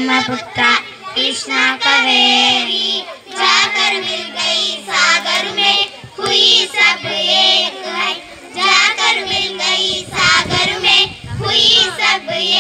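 A group of young girls singing a song together in unison, phrase after phrase. A brief low rumble comes in about ten seconds in.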